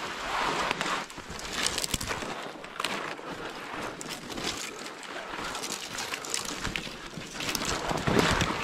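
Footsteps crunching through snow and dry brush rustling against clothing, in irregular steps that swell louder about two seconds in and again near the end.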